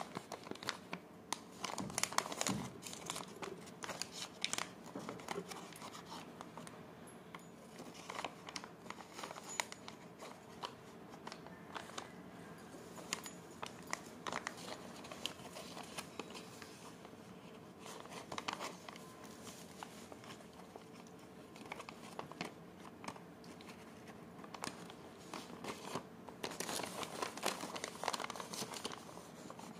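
Paper-and-foil wrapper of a milk chocolate bar crinkling and rustling as it is unfolded and handled, with a few tearing sounds. The crackling comes in bursts, busiest near the start and again toward the end.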